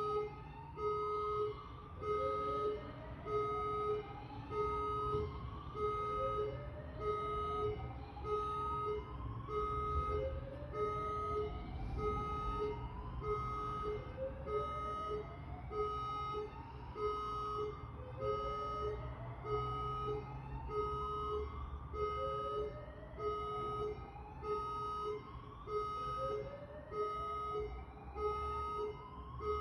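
Electronic alarm sounding continuously: a whooping tone that rises in pitch and starts over about every two seconds, under a steady on-off beeping of about two pulses a second.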